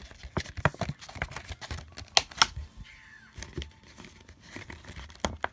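Irregular sharp clicks and crackles of a plastic blister pack being handled and pried at to free the card inside.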